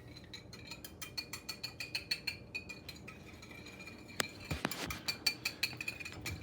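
Small whisk clinking rapidly against a dish while whisking a vinegar, sugar and oil dressing, several light ringing clinks a second. The clinking pauses about halfway through, then two louder knocks follow.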